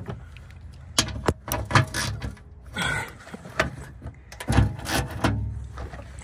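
Irregular metallic clicks and knocks of a wrench working loose the 12 mm bolts on a 2016 Toyota 4Runner's underbody cover, with a few louder thumps as the tool is handled.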